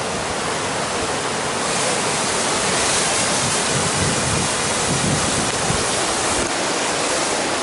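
Mountain river rushing over rapids: a steady, even roar of white water.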